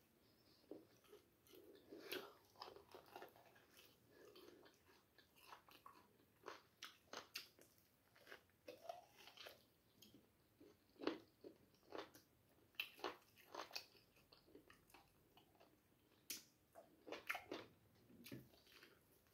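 Close-up mukbang eating sounds: chewing and biting while tearing meat off the bone by hand, with irregular crunches and clicks, a few of them louder.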